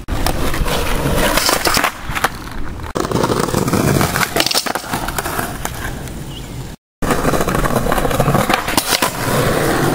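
Skateboard wheels rolling on pavement, with scattered clacks and knocks from the board. The sound cuts out briefly about seven seconds in, then the rolling starts again.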